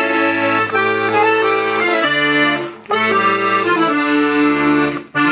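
Hohner Concerto III accordion playing held chords over bass notes, with brief breaks between phrases about three seconds in and again near the end.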